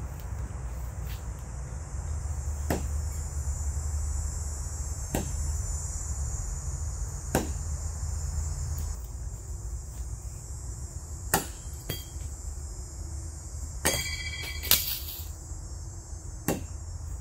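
Steady high-pitched buzz of insects in summer woods, with about eight scattered sharp clicks and taps: footsteps on the leafy path and steel throwing knives knocking together in the hand, one ringing briefly about two-thirds of the way in.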